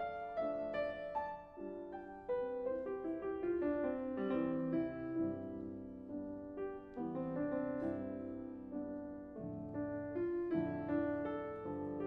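Background piano music: a steady run of notes and chords, each struck and then fading.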